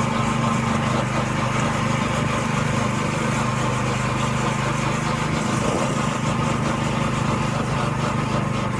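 Go-kart's small engine running at a steady speed while the kart drives along.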